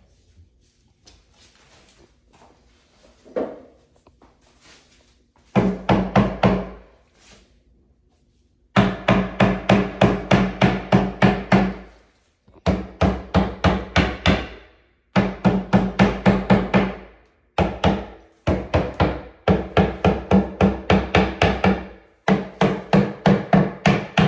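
Hammer tapping on flat-pack furniture parts to seat them, in several runs of quick, even strikes about four a second, each strike ringing.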